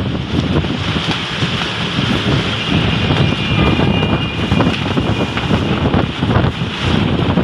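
Strong storm wind gusting and buffeting the microphone, a loud continuous rushing with a deep rumble.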